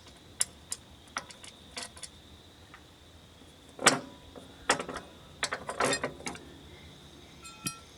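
Metal clicks and clinks of a wrench on bolts as the inspection cover on a wood chipper is unbolted and taken off. Scattered sharp clicks, the loudest about four seconds in, followed by a quick run of clinks.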